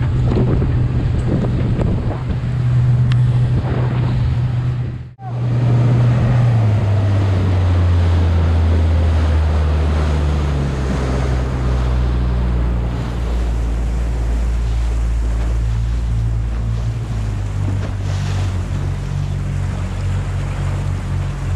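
Motorboat engine running under way, with wind on the microphone and the rush of water. There is a brief dropout about five seconds in, after which the engine note settles lower.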